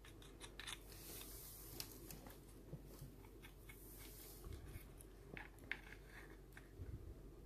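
Faint handling noises: scattered light clicks and a brief soft rustle as a plastic belt sander attachment for an angle grinder is turned over in the hands.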